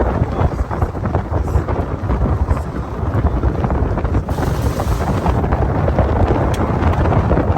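Wind buffeting the microphone: a loud, continuous low rumble with gusty flutter.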